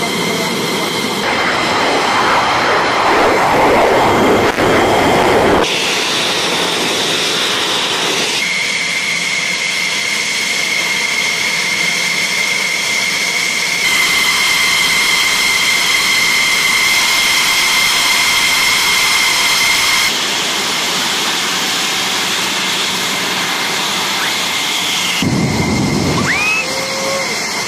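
F-16 fighter jet engines running on the flight line: a loud, steady turbine whine with a rushing roar under it. The sound changes abruptly several times as different jets are heard, with a deeper rumble swelling in the first few seconds and again near the end.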